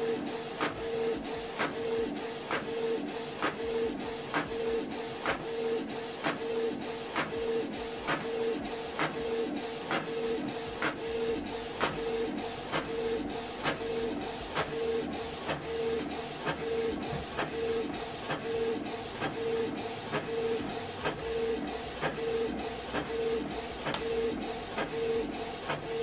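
Canon PIXMA MG2551S inkjet printer printing a page: a steady whirring pulse with a sharp click about twice a second, going on without a break.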